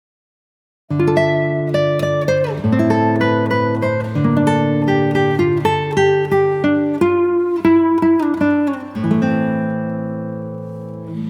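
Background music: an acoustic guitar picking notes and chords after about a second of silence, the notes dying away near the end.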